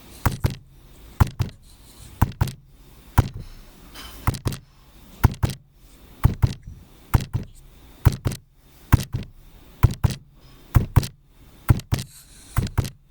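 A run of sharp thuds and knocks, one to three a second and often in quick pairs: punch and hit sound effects for a staged fight.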